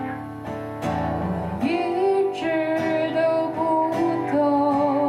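A woman singing a slow ballad to her own steadily strummed acoustic guitar. Her voice holds long, wavering notes from about a second and a half in.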